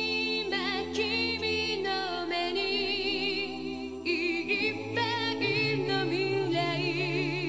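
Music: a voice singing a melody with heavy vibrato over held low notes, the low notes shifting a little after four seconds in.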